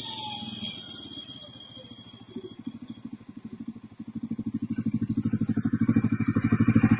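CFMoto CForce 600 ATV's single-cylinder engine idling with an even, rapid putter, growing louder over the last few seconds.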